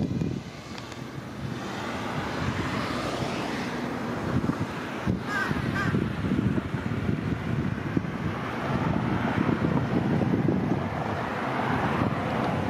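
Running river water and wind buffeting the microphone, with a crow cawing.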